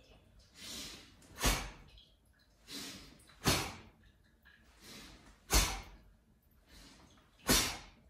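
A man breathing rhythmically through a qigong breathing exercise: a soft in-breath followed by a short, forceful out-breath, repeated four times about every two seconds.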